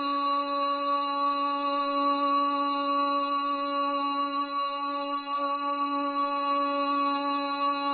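Background music: a single droning note held steady at one pitch, without a break.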